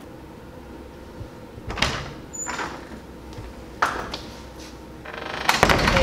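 Classroom door handled and swung shut: a few separate clunks, then a louder noisy swing lasting about a second near the end.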